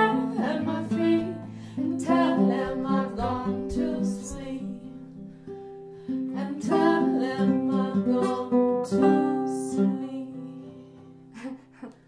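Acoustic guitar playing a folk tune, with fresh chords at about two, seven and nine seconds in. The notes ring on and die away as the playing fades out near the end.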